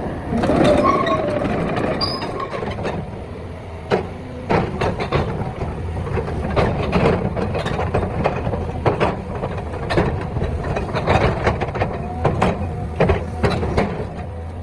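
Excavator's diesel engine running steadily, with many sharp metallic knocks and clanks scattered throughout and a brief squeal at the start.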